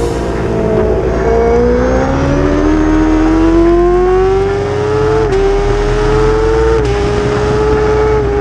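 Kawasaki ZX-10R's inline-four engine pulling hard on track: the pitch dips out of a corner, then climbs steadily under acceleration. Two quick upshifts come a few seconds in, about a second and a half apart, each a brief drop in pitch.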